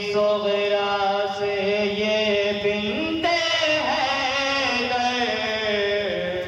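Male voice chanting an Urdu nauha (Shia lament) into a microphone and loudspeaker, holding long, slightly wavering notes. About three seconds in a new line begins and other voices join the lead.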